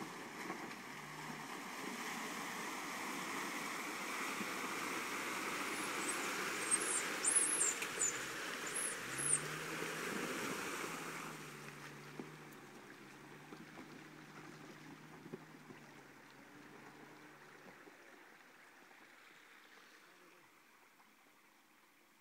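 Hummer H3 driving through a shallow creek: water splashing and rushing around the wheels over a steady engine note that revs up about nine seconds in, with a few short high squeaks just before. The sound then fades as the SUV climbs out up the dirt bank and pulls away.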